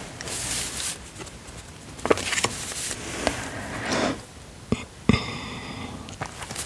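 Close-miked handling of a paper planner and sticker sheets: paper rustling in short bursts with several light taps and clicks as stickers are handled and pressed onto the pages, and a scratchy drawn-out sound starting suddenly about five seconds in.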